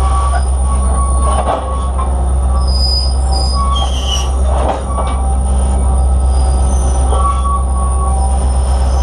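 Steel wheels of a freight car rolling on the rail close up: a steady low rumble with thin high squeals from the wheels coming and going.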